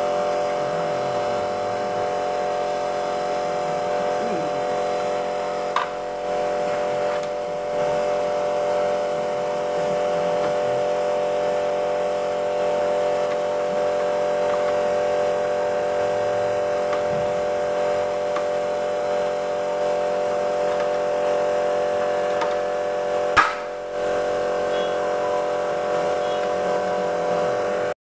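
A steady mechanical hum with several fixed pitches runs throughout. About six seconds in there is a short click, and about 23 seconds in a louder sharp snap, typical of a hand rivet gun breaking off a rivet's mandrel.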